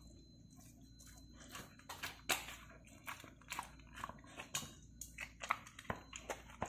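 Dog chewing and biting pieces of hot-dog sausage and bread bun, with irregular chewing clicks. The clicks start about a second and a half in, and the loudest comes a little after two seconds.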